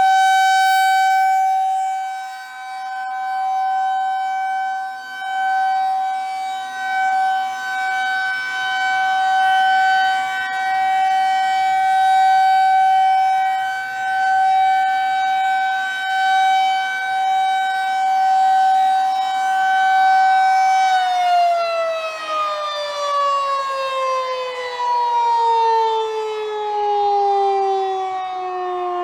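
Federal Signal 2001 electromechanical tornado siren sounding a steady tone that swells and fades in loudness. About three-quarters of the way through, its power is cut and it winds down, the pitch sliding steadily lower as the rotor slows at the end of the test.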